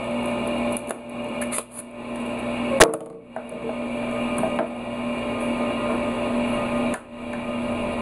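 Plastic housing parts of a small electric air horn compressor being handled and taken apart, with light clicks and one sharp knock about three seconds in, over a steady low hum.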